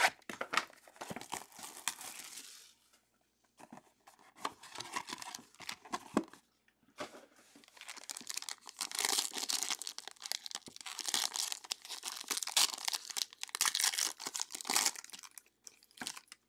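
Foil wrapper of a trading-card pack being torn open and crinkled by hand, a run of crackling rustles with short pauses that is busiest in the second half.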